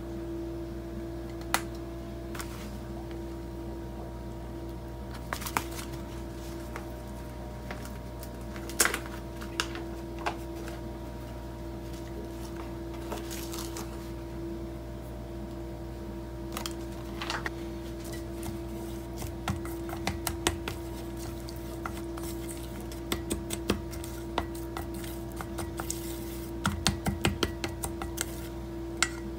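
Chopsticks clicking and scraping against a stainless steel mixing bowl: a few sharp clicks at first, then quicker clicking in the last several seconds as an oily cod-roe mixture is stirred. A steady low hum runs underneath.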